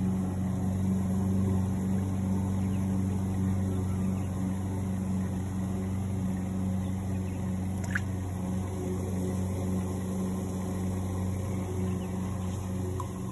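A motor running with a steady low hum at a live-bait tank. There is one brief click about eight seconds in.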